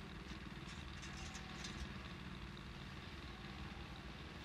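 Faint, steady low mechanical hum like an idling engine, with a few light ticks over it in the first couple of seconds.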